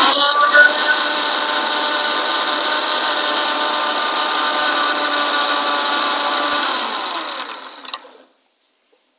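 Electric mixer grinder running at full speed, grinding a wet mustard-seed, garlic and spice paste. About seven seconds in it is switched off and its whine falls in pitch as the motor spins down to a stop.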